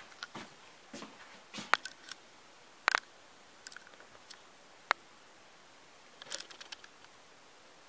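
Handling noise: scattered sharp clicks and light knocks, the loudest a double click about three seconds in and another near five seconds. Near the end comes a cluster of small knocks as a tablet is picked up off a countertop.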